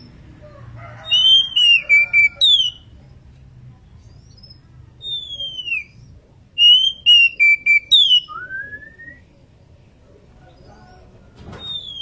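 Female oriental magpie-robin in breeding condition, calling: loud, clear whistled phrases, most gliding down from a high note. They come in three bouts with pauses between, and one rising whistle closes the last bout.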